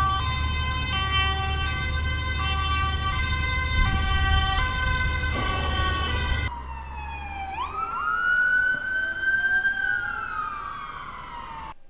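Toy ambulances' electronic sirens: first a two-tone hi-lo siren switching between two pitches about every three-quarters of a second over a low hum, then, after a sudden cut, a wailing siren that sweeps up quickly and slowly falls.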